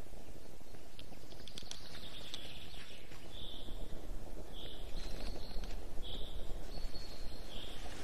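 A small songbird repeating a short, high call about every second and a half, over a low rumbling noise that grows louder and more uneven about three seconds in.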